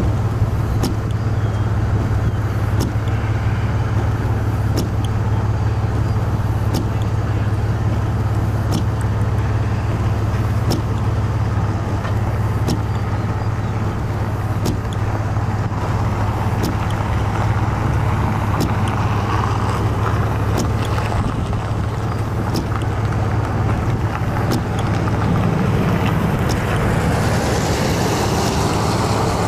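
Car on the move, a steady low road rumble, with faint regular ticks about once a second; a hiss swells near the end.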